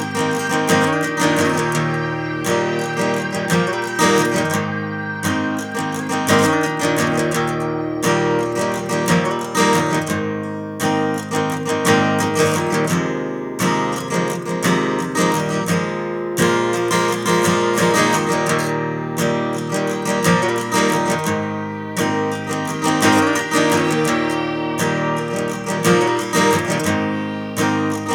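Background music: an acoustic guitar track with strummed and plucked chords.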